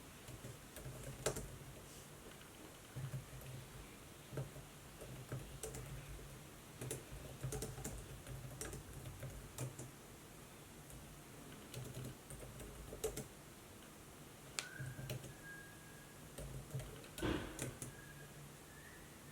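Laptop keyboard typing: faint, irregular keystrokes in short runs with pauses between. A thin high tone comes in about three-quarters through.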